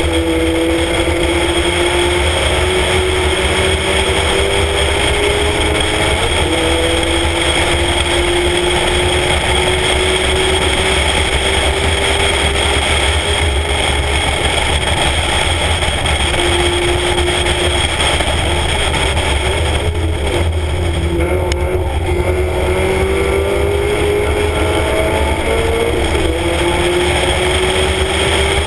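Spec Miata's four-cylinder engine pulling hard on track. Its pitch climbs slowly and drops back at a few gear changes, under heavy wind rumble on the outside-mounted microphone.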